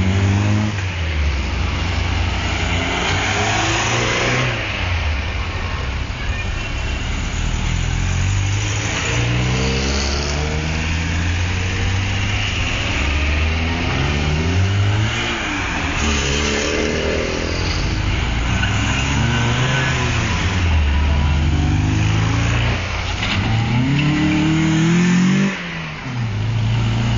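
Old FSO cars, Polski Fiat 125p saloons and pickup and a Polonez, driving past one after another with their engines revving up, the pitch climbing through the gears and dropping away as each car passes.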